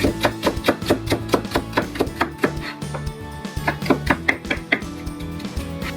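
Kitchen knife chopping through fresh young ginger on a cutting board in quick, even strokes, about five a second. It pauses briefly just after the middle, then resumes. Background music plays underneath.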